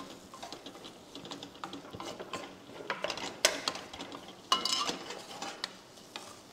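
Wooden spatula stirring and scraping diced potatoes around a stainless steel kadai, with irregular scrapes and clicks against the pan and a short metallic ringing clink about four and a half seconds in.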